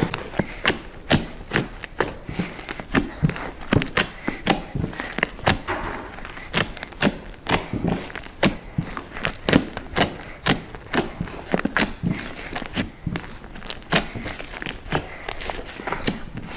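Pink fluffy slime made with shaving cream and Model Magic clay being kneaded, poked and stretched by hand, giving a fast run of sharp pops and crackles from trapped air, about three a second.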